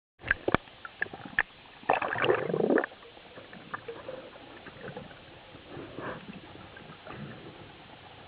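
Underwater camera audio near the surface. A few sharp clicks come first, then about two seconds in a loud rush of bubbling water lasting about a second. After that there is a steady underwater hiss with faint knocks as the freediver descends.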